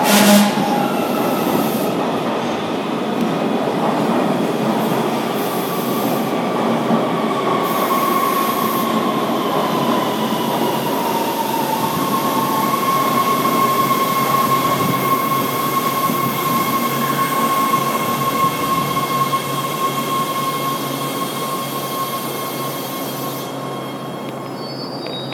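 AnsaldoBreda A650 subway train pulling into the station, its running noise overlaid with a squealing whine that slides slightly lower over the first dozen seconds, then holds steady and fades as the train slows. A brief loud blast sounds right at the start, and a short high tone sounds near the end.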